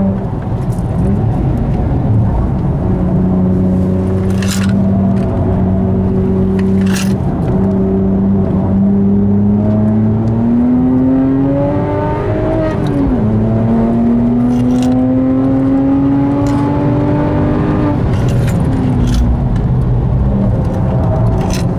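Devotec-tuned BMW 1M's twin-turbo straight-six heard from inside the cabin, running at steady revs at first. About halfway it rises in pitch under acceleration, dips briefly, climbs again, and falls away near the end. There are two short sharp clicks in the first third.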